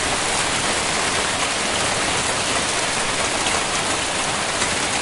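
Hail falling heavily in a steady, dense clatter of countless small impacts.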